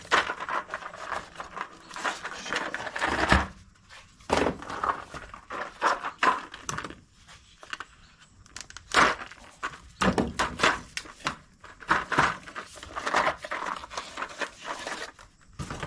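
Socket sets and their plastic trays and packaging being handled: a run of irregular clicks, knocks and crinkling.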